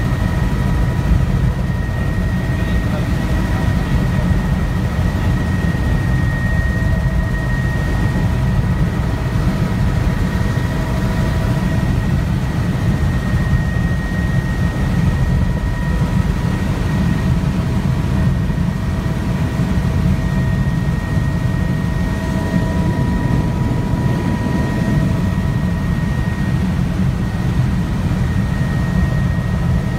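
Helicopter cabin noise in steady flight: a constant low rotor and engine rumble with a thin whine of several steady high tones above it.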